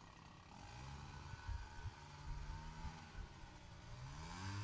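A faint engine running, its pitch wavering and then rising near the end as it speeds up. A couple of light knocks sound about one and a half seconds in.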